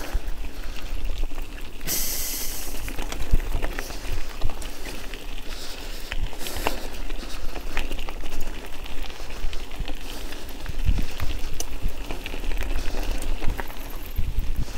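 A bicycle rolling over rough ground: a steady rush of noise with a deep rumble, broken by many irregular clicks and knocks, and a brief loud hiss about two seconds in.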